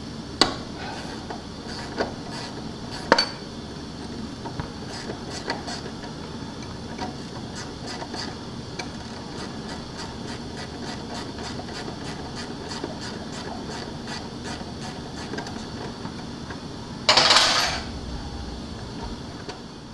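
Hand ratchet wrench working a bolt under the front of a Can-Am Spyder: a few sharp metal clicks, then a long run of evenly spaced light ratchet ticks over a steady background hiss. Near the end comes a louder rasping noise lasting about a second.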